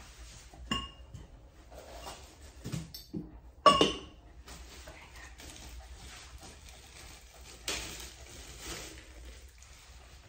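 A few sharp metal clinks and knocks from the grooming arm and its hardware being handled, the loudest about four seconds in with a short ring, then a brief rustle near the end.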